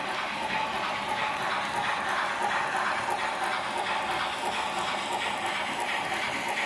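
H0-scale model freight train, with a model steam locomotive and wagons, rolling along the layout's track. It makes a steady rolling rattle of metal wheels on the rails, with light clicking throughout.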